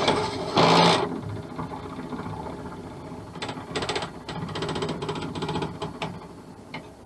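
Bench lathe running with a fast mechanical rattle in short spells, the pen-blank mandrel not tight enough and chattering; a loud knock-like burst comes at the start.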